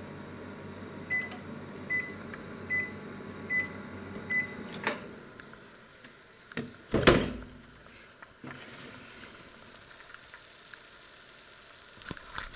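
Panasonic inverter microwave oven running with a steady hum, then beeping five times about a second apart to signal the end of cooking. The hum drops away as the door is released with a click, followed by a loud clunk about seven seconds in and a light clatter near the end.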